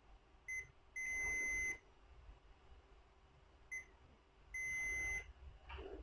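Digital multimeter beeping in continuity mode as its probes touch the spliced wires: twice a short blip followed by a steady beep of under a second. The beep shows that the twisted wires are connected.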